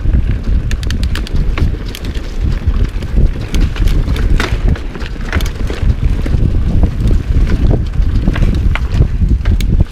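Mountain bike descending a dirt trail at speed: a constant low rumble of wind buffeting the GoPro's microphone and the tyres rolling over dirt, with many irregular sharp clicks and rattles from the bike over bumps.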